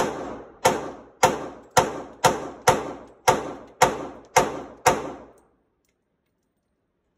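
Ten shots from a Glock 27 .40 S&W pistol fired at a steady pace of about two a second, each one echoing in an indoor shooting range; the string stops after about five seconds.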